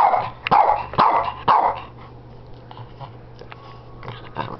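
Shih Tzu barking for a hamburger held above it: four sharp barks about two a second, then a pause and a softer bark near the end.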